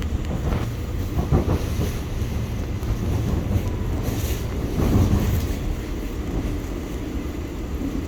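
Electric subway train running on the track, heard from inside the car: a steady low rumble, with a few louder knocks about a second in and again around five seconds.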